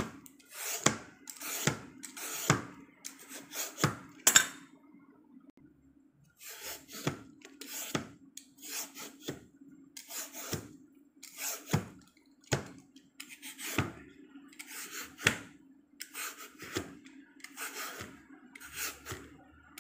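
Hand vegetable peeler scraping the skin off a medium-ripe papaya in short repeated strokes, about one a second, with a pause of a couple of seconds about four seconds in.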